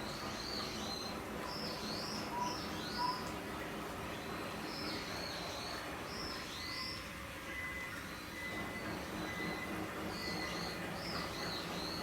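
Small birds chirping in short clusters of high, quickly falling calls, over a steady low background rumble.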